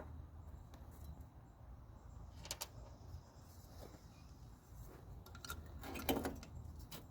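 Faint clicks and light rattles of a sealed-beam headlamp being handled and fitted into its mounting, with a few sharper clicks around two and a half seconds in and again near six seconds, over a low steady hum.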